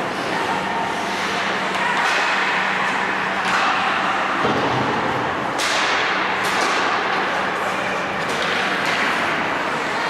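Ice hockey play: skate blades scraping across the ice and several sharp clacks of sticks and puck, ringing in the rink over a steady low hum.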